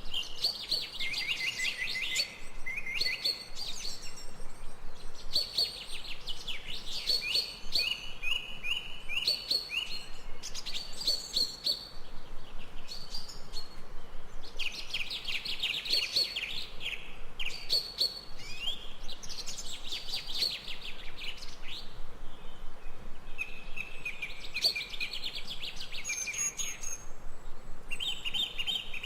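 Songbirds singing: repeated bouts of rapid high chirps and trills, each a second or two long with short pauses between.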